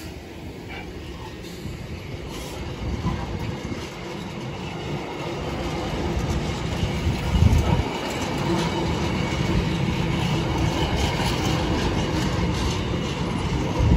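A freight train of empty intermodal container flat wagons rolling past close by, wheels clattering over the rails. The sound builds through the first half, with heavy low thumps as wheelsets pass about halfway through and again at the end.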